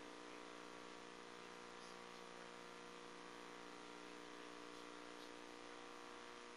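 Near silence: a faint, steady hum with a little hiss.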